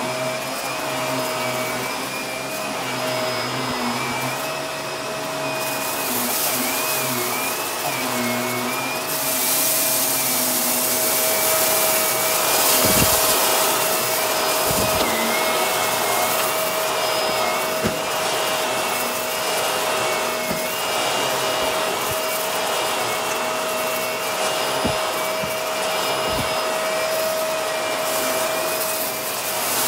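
Bagless upright vacuum cleaner running as it is pushed over rug and carpet: a steady motor whine with a higher wavering whine over the airflow hiss. The hiss grows stronger about a third of the way in, and a few brief low thumps come through the middle and later part.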